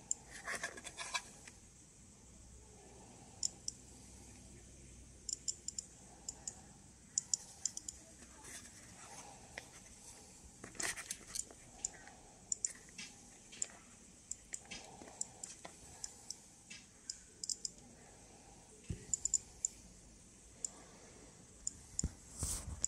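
Geiger-counter dosimeter clicking at irregular, random intervals, each click short and sharp, as it registers radiation counts. Handling noise comes about half a second in and again near the end.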